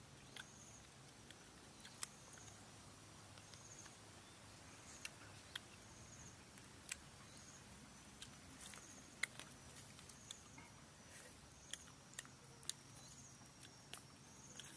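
Near silence outdoors: a faint high chirp repeating every second or so, like an insect, with scattered soft clicks and taps.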